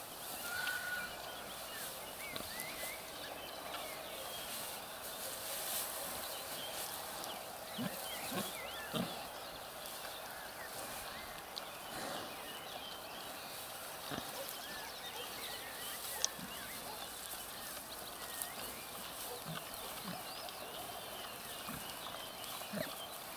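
Sow grunting in short, low grunts every few seconds while rooting in straw, over steady faint high chirping.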